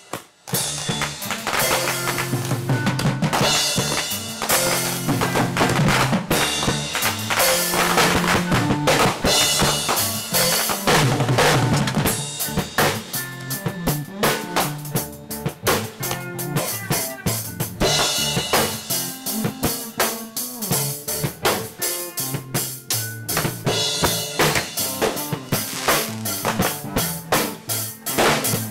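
Rock music played by a band: a fast drum-kit beat with snare and bass drum, bass guitar and electric lead guitar. It starts again after a brief break just at the start.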